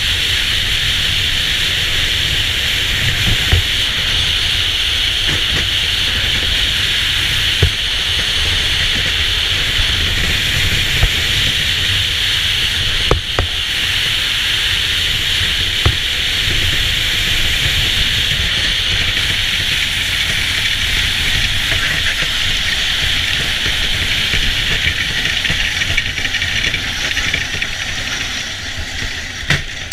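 Bobsled's steel runners hissing over the ice at speed, with a low rumble and a few sharp knocks. The noise eases near the end as the sled slows on the outrun.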